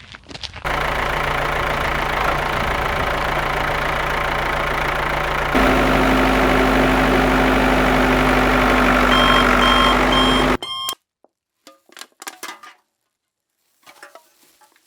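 Steady engine running, stepping up in level with a new steady tone about halfway through, with three short beeps shortly before it cuts off suddenly. A few faint clicks follow.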